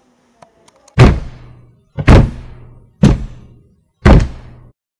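Four heavy booming hits, one a second, each ringing out with a deep low hum, then cutting off abruptly near the end: a dramatic impact sound effect, in the manner of a film trailer.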